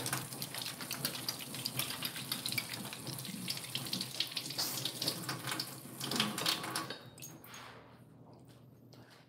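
Kitchen tap running, water splashing into the sink, which stops about seven seconds in.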